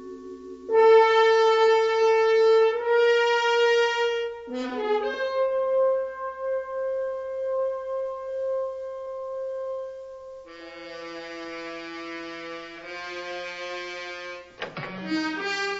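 Dramatic orchestral film score: long held chords and notes, changing every few seconds, with a new, brighter chord about ten seconds in.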